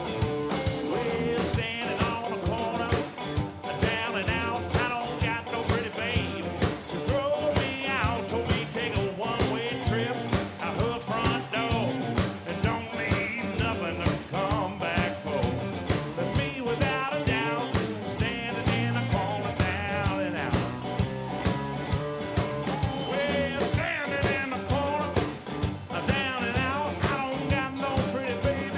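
A rock band playing a blues shuffle live, with electric guitar, a steady drum-kit beat and singing.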